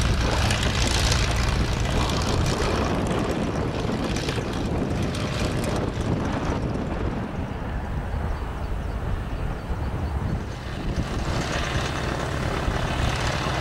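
Boeing Stearman biplane's radial engine and propeller running steadily as the aircraft rolls and taxis on the runway.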